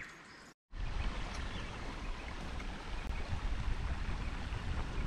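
Steady rushing noise of running water with a low rumble of wind on the microphone, starting after a brief dropout about half a second in.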